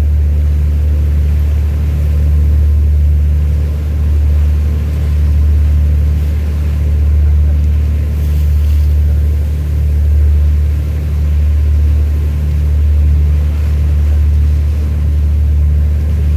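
Ship's engine running, a steady low drone with a few pitched hum tones that swells and fades gently every second or two.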